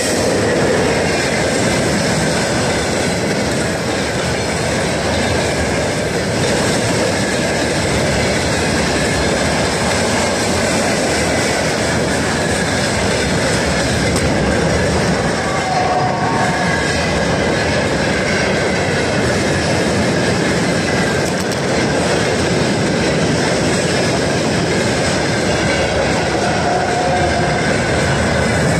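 Long freight train of tank cars and hopper wagons rolling past at speed behind a VL80S electric locomotive: a loud, steady rumble and clatter of steel wheels on the rails.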